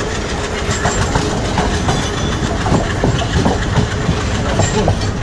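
Passenger train running along the line, heard from an open carriage doorway: a steady rumble with a dense, irregular clatter of wheels and couplings knocking over the rail joints.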